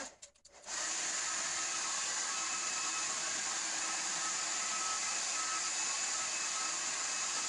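AEG hair dryer switched on with a few clicks, then running steadily: an even rushing blow with a faint whine. Not very loud.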